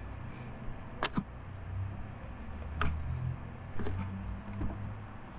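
A few sharp clicks of a computer mouse and keyboard keys while a document is being edited, some in quick pairs, over a low steady hum.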